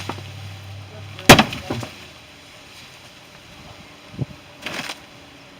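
A loud, sharp bang about a second in, then a few fainter knocks and a short scraping rush near the end, over a steady low hum.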